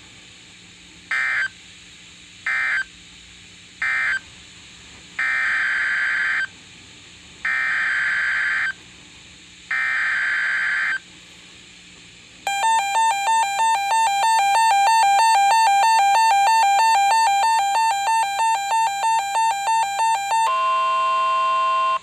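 NOAA Weather Radio SAME data bursts through a First Alert weather radio's speaker: three short end-of-message bursts, then three longer header bursts announcing the next alert. Then comes the radio's own pulsing alert alarm, about two beeps a second for some eight seconds, and near the end a steady warning alarm tone of about 1 kHz.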